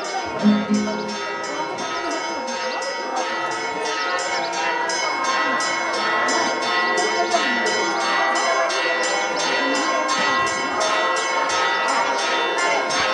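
Church bells ringing a fast, even peal, about three strikes a second, with several bell tones sounding on together.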